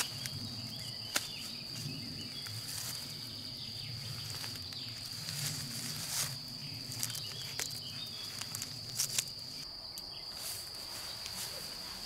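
Crickets chirping in one steady high-pitched drone, with scattered clicks and rustles of hammock tree straps being handled and footsteps in grass. A faint low hum stops about ten seconds in.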